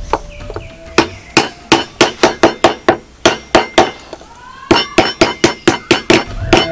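Claw hammer tapping on the metal end fitting of a wooden bolo handle braced upright on a wooden block. The strikes come quickly, about five a second, in two runs with a pause of about a second and a half between them.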